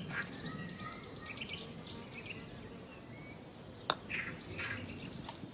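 Small birds chirping and calling in quick short notes, with a single sharp click about four seconds in.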